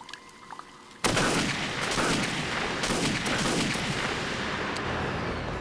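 Gasoline vapour igniting in an explosion: a sudden loud blast about a second in, running on as a dense crackling burn.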